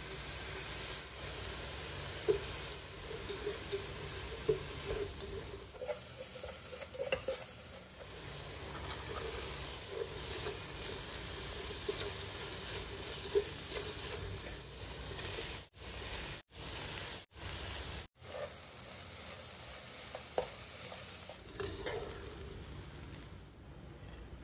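Vegetables and rice stir-frying in a nonstick pan: a steady sizzling hiss, with a spatula scraping and knocking against the pan now and then. The sound cuts out briefly four times a little past the middle, and the sizzle dies down near the end.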